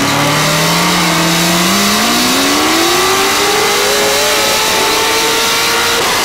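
A car engine running loud, its pitch climbing steadily for about two seconds and then holding at high revs, with a brief break near the end.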